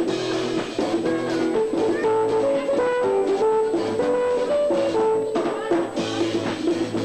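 Live chutney band playing an instrumental passage: a melody of held notes stepping up and down over a steady drum beat.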